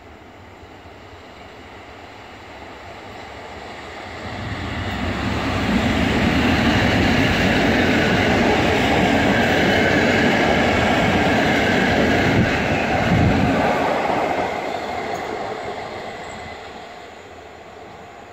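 PKP EU07 electric locomotive hauling a TLK passenger train of Intercity coaches past at speed: wheels rumbling on the rails. The sound swells over a few seconds, stays loud for about eight seconds while the coaches go by, then fades as the train moves away.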